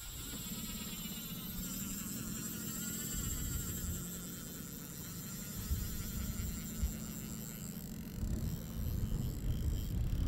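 Spinning reel's drag buzzing steadily as a large tuna strips line off the nearly emptied spool, over a low steady hum that grows louder near the end.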